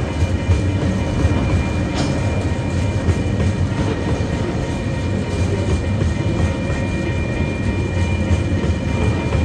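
Container wagons of a TasRail freight train rolling past: a steady rumble of wheels on rail with scattered clicks, one sharp click about two seconds in.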